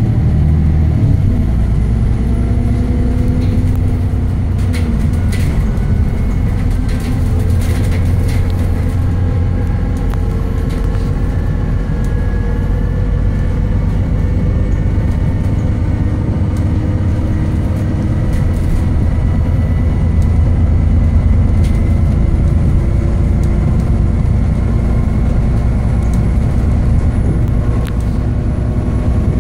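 Rear-mounted diesel engine of an Alexander Dennis Enviro400 (E40D) Euro 6 double-decker bus pulling along, heard from inside the passenger saloon. The engine's pitch rises and falls as it works through the gears, and a few brief rattles sound about five to eight seconds in.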